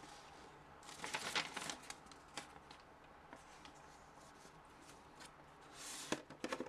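Paper instruction sheet rustling as it is unfolded and handled, in faint rustles with a louder flurry about a second in, then hands rummaging in a cardboard box near the end.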